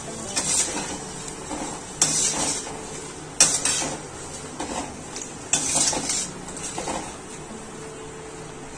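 A stainless-steel slotted spoon scraping and clinking against a steel kadai while dried red chillies and curry leaves are stirred in hot oil, about one stroke a second and stopping near the end, with a faint sizzle of the oil underneath.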